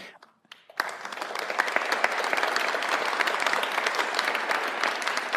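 Audience applauding, breaking out suddenly about a second in and then holding steady.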